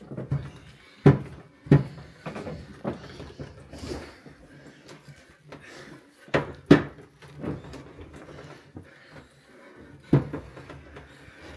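Long wooden paddle beating a thick walnut halva mass in a large metal pot, knocking against the pot's side at uneven intervals, with the stirring noise in between.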